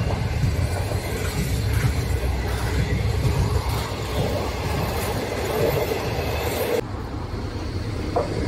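Green 25G passenger coaches running past at speed: a steady, dense rumble of wheels on rail. Near the end it cuts abruptly to a quieter rumble as another train, led by an HXD3C electric locomotive, approaches.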